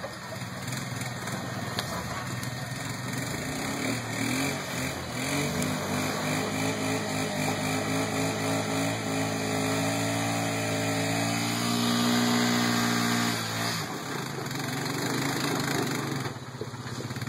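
Rock crawler's engine working under load as it climbs a rock ledge, revs held high and fairly steady for about eight seconds, then dropping away about fourteen seconds in.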